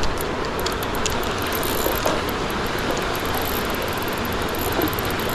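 Steady rush of river water, with quick light clicking from a fishing reel being cranked, densest about the first second.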